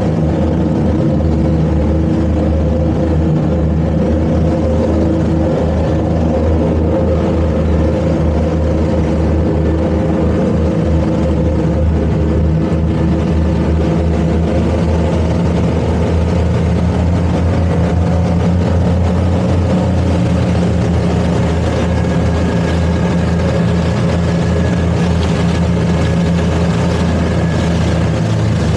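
A towboat's twin outboard engines running hard under load, a steady drone with churning prop wash, as they strain on a towline to pull a grounded boat free.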